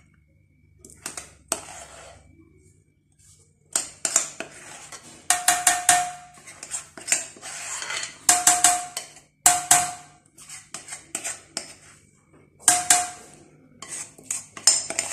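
A spoon scraping and knocking against a mixing bowl as thick chocolate cake batter is scooped out into a loaf pan. The strokes come in repeated clattering bursts from about four seconds in, some leaving a short ringing note.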